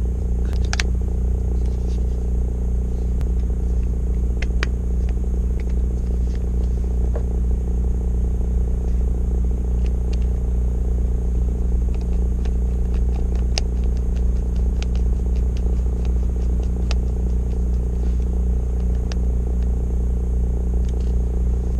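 A steady, even engine drone with a low hum, and scattered light clicks and taps of small parts being handled.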